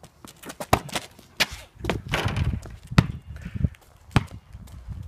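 A basketball bouncing on an asphalt driveway: a string of sharp, irregular thuds, the loudest about three seconds in.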